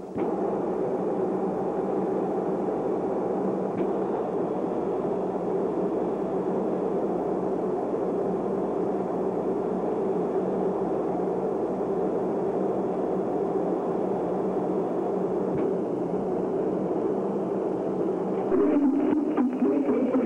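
A steady mechanical whir with a low hum running evenly, like a motor; near the end, music comes in over it.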